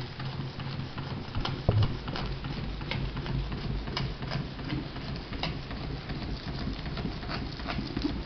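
Vintage Elmer Verburg model beam steam engine running on live steam at about 10 to 12 psi: a quick, uneven patter of light clicks and spits over a low steady hum. One louder thump comes about two seconds in.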